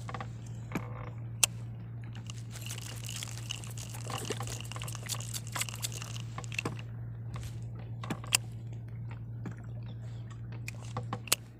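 Small spinning reel and light rod being worked while jigging: scattered clicks, crackles and rubbing, with a faint whine from about two to six seconds in, over a steady low hum.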